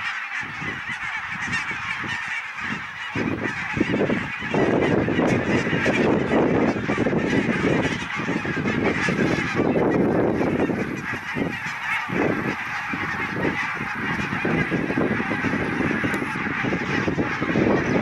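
A large flock of greylag geese honking together in a dense, unbroken chorus of many overlapping calls.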